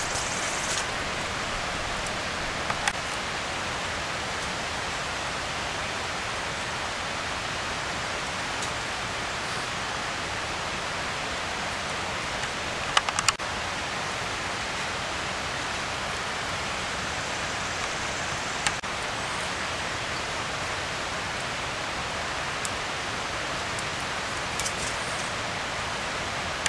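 Steady, even hiss of background noise, with a few faint clicks and a short cluster of light taps near the middle as a slice of bread is lifted and turned on top of a small wood-burning stove.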